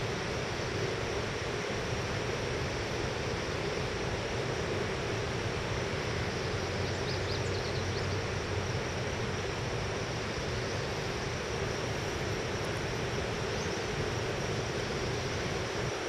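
A steady, even roar with a low hum underneath, unchanging throughout, with a few faint high chirps about seven seconds in and again near the end.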